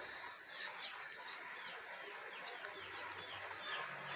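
Small songbird singing over and over: a short high level note followed by quick falling chirps, repeating about once a second.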